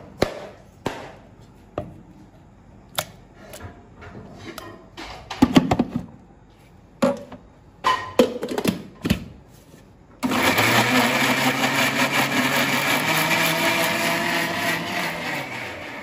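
A knife chops on a plastic cutting board, and a steel jar clatters as it is handled. About ten seconds in, an electric mixer grinder starts and runs steadily, blending peeled boiled tomatoes, then winds down near the end.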